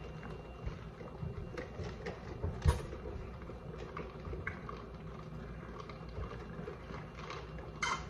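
Quiet sipping of drinks through straws from plastic fast-food cups, with scattered faint clicks over a low steady hum.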